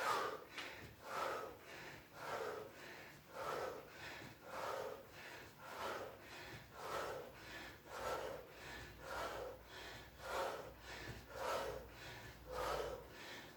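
A person breathing out hard in short, even puffs, about two a second, in time with fast repetitions of single-leg jackknife sit-ups.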